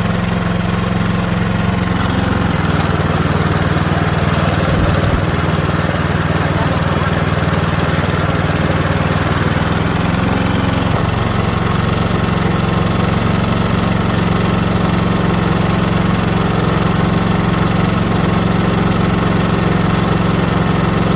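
Craftsman snowblower's 123cc four-stroke overhead-valve engine running steadily at low speed, not coming up to full revs, with small shifts in its note about two seconds in and again around eleven seconds. It runs slow and unusually quiet because of a carburetor problem, which the owner traces to a tampered idle mixture screw.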